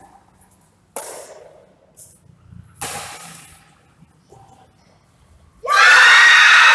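Badminton rackets striking a shuttlecock in a rally: sharp pocks about two seconds apart, each echoing through a large hall. Near the end a woman lets out a loud shriek of about a second and a half, the loudest sound here.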